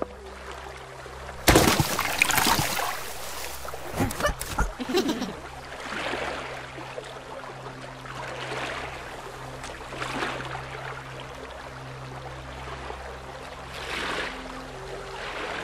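Cartoon water sound effects: a loud splash about one and a half seconds in, a few clicks shortly after, then water swishing in swells every two seconds or so over a low steady hum.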